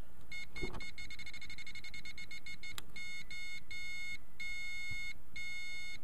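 Morse-code side tone from a NorCal keyer, sounding as high-pitched beeps through a small speaker inside a homebuilt 10-meter beacon transmitter. First comes a rapid string of short beeps; about three seconds in the beeps turn long and slower as the keyer's speed is turned down.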